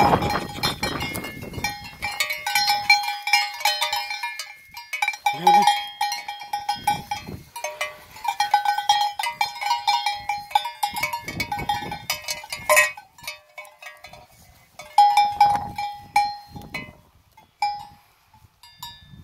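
A sheep's metal bell (cencerro) clanking in irregular bursts as the animal moves about, with a quieter spell around 13 to 15 seconds and only a few scattered clinks near the end.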